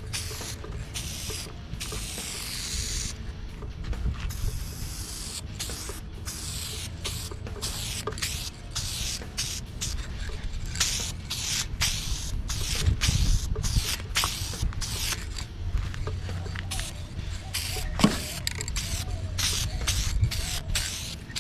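Aerosol can of Shine Juice paint-and-rust sealer spraying onto a car hood in repeated bursts of hiss, with brief scuffing between the bursts and a single knock about three-quarters of the way through.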